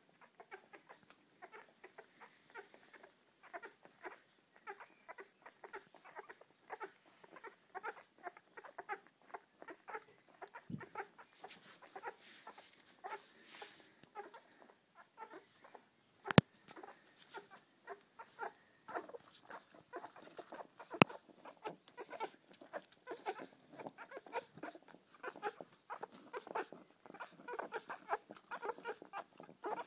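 A litter of newborn springer spaniel puppies nursing: a busy, continuous stream of small squeaks and suckling noises. Two sharp clicks stand out, one just past the middle and one about two-thirds of the way through.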